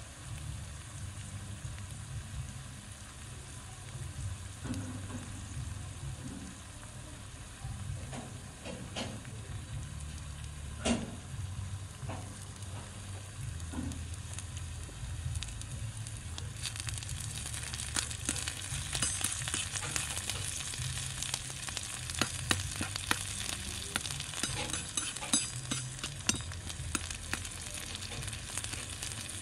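Food sizzling in hot oil in a miniature wok, with a sharp knock near the middle. From about halfway the sizzle grows louder and brighter as a metal spoon stirs and scrapes the wok, with frequent sharp clinks.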